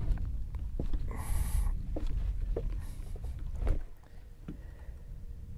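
Wind buffeting the microphone as a low, uneven rumble, with scattered knocks and a brief rushing hiss about a second in; the sound drops away abruptly near four seconds.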